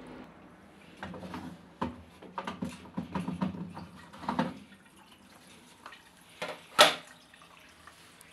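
Water splashing and dripping in irregular spurts, with scattered knocks and one sharp, louder knock about seven seconds in.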